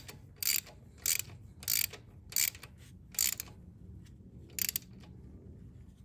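Small low-clearance ratchet with a 9/16 socket clicking in about seven short strokes, roughly two every second and a half, with a longer pause before the last one, as a transmission dipstick is snugged down.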